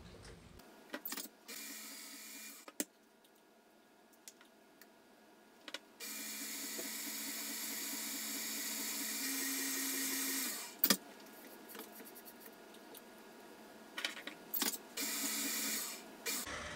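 Electric stand mixer motor running in spells as egg is mixed into cake batter: a short run near the start, a longer run in the middle that rises a step in pitch before stopping, and another short run near the end. A few sharp clicks, the loudest just after the long run stops.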